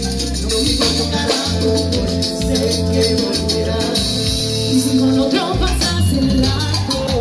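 A live Latin band playing, with several vocalists singing into microphones over a steady bass line and fast, busy high percussion.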